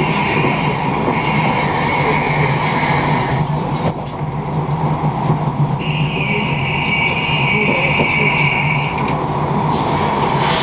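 Passenger train running at speed, heard from inside the carriage: a steady rolling rumble, with a high steady whine that fades out a few seconds in and comes back for about three seconds in the middle.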